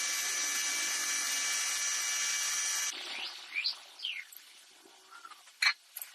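A power drill or drilling machine running steadily with a high whine, stopping about three seconds in. Brief quieter rising-and-falling whines follow, then two sharp knocks near the end.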